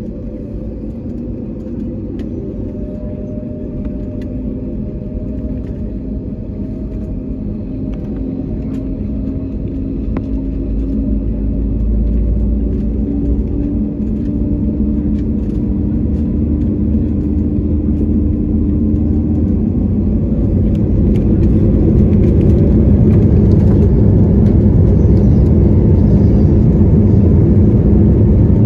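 Jet engines of an Airbus A320-family airliner, heard from inside the cabin while taxiing onto the runway. The engine noise builds in steps around the middle and settles at a steady, much louder level for the last third as the engines spool up for the takeoff roll.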